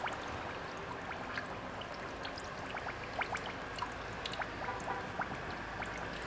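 Coolant trickling and gurgling in the charge air cooler loop's fill opening, with scattered small pops and drips of air bubbles: air is still being bled out of the coolant circuit.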